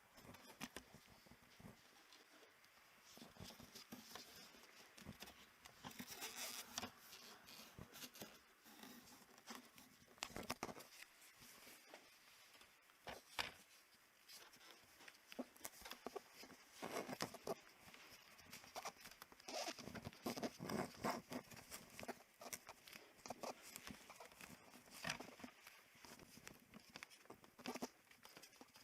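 Rats scratching and scurrying in the air-conditioner wall hole and duct: faint, irregular little scrapes and taps in scattered clusters.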